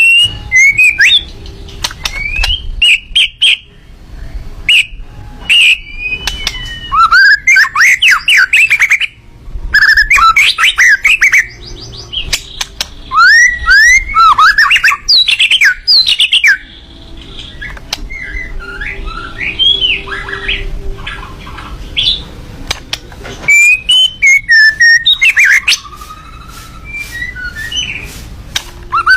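A Miwah songbird singing in loud bursts of rapid chirps and sharply sweeping whistled notes, with short pauses between phrases.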